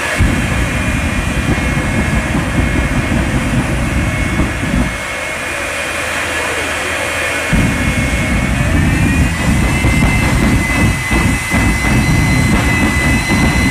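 Jet engine of a jet-powered 1995 Freightliner Classic drag truck, run with its afterburner lit in two long blasts: a heavy rumble under a steady high whine. The rumble drops away for a few seconds between the blasts, and the whine climbs slightly in pitch about nine seconds in.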